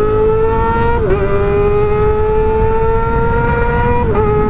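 Kawasaki ZX-25R's inline-four engine with an Arrow exhaust accelerating hard at high revs, its pitch climbing steadily in each gear. Two quick upshifts, about a second in and near the end, each a brief dip in pitch.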